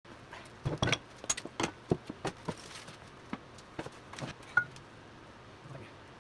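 Irregular clicks, knocks and light clinks of hard objects being handled, with one short ringing clink about four and a half seconds in.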